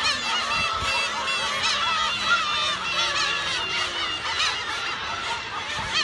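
Many black-tailed gulls calling over one another in a crowded breeding colony: a continuous chorus of short, overlapping cries.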